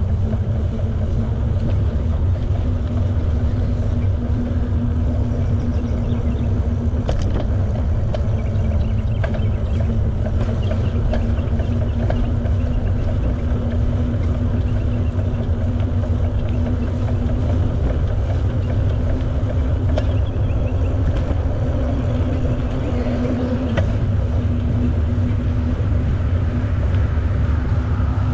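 Steady low rumble of a bicycle being ridden, mostly wind buffeting the camera microphone along with tyre noise on the path, with a faint steady hum and a few light clicks.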